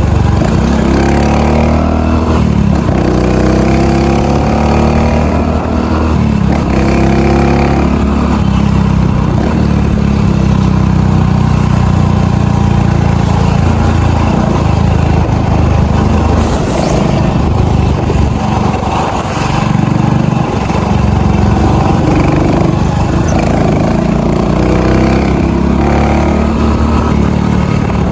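Honda Pop 110i's small single-cylinder four-stroke engine running, its pitch climbing several times in a row in the first eight seconds and again near the end.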